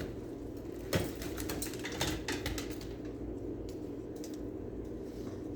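Light clicks and handling noises of plastic machine parts being folded and fitted by hand, a few distinct clicks about one and two seconds in, over a steady low hum.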